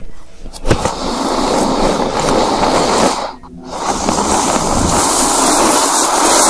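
Loud, steady rushing hiss, broken by a short drop a little past three seconds in.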